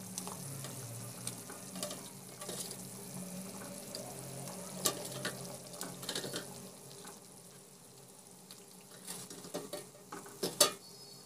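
Spatula stirring a thick mixture simmering in a pan, with a steady soft bubbling and a few short scrapes of the spatula against the pan, the clearest about halfway through and near the end.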